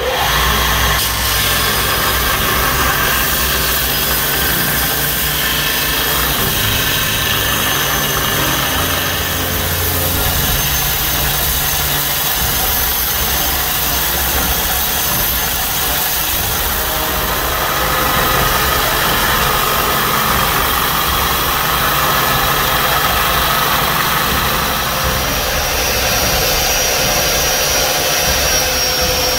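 Belt grinder running under load, its abrasive belt grinding a hardened steel truck-spring blank: a steady, loud grinding hiss over the hum of the motor, with small shifts in pitch as the work is pressed on and moved.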